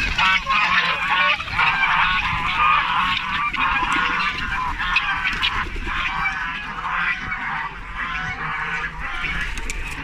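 A flock of domestic geese honking all together, with ducks calling among them; the clamour is loudest in the first half and thins out toward the end.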